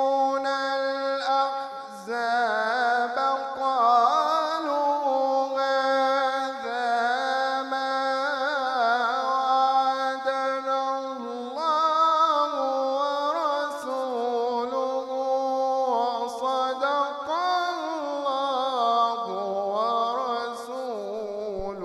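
A man reciting the Quran melodically into a microphone, in long, held, richly ornamented notes without pause. Near the end the phrase sinks in pitch and comes to rest.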